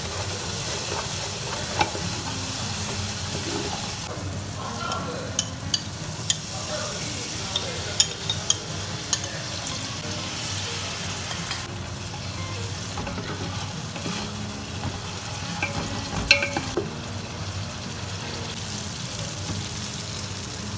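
Onions and kurma spice paste sizzling in hot oil in a pot while being stirred, the spoon clicking against the pot a number of times, in clusters around the middle and again later.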